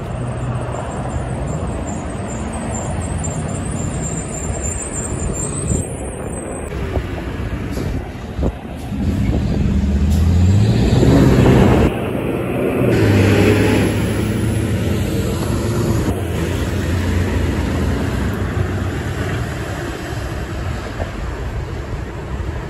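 Heavy diesel trucks in road traffic; a concrete mixer truck's diesel engine pulls past close by, climbing in pitch through a few gear changes and loudest about halfway through, then settling into a steady engine drone.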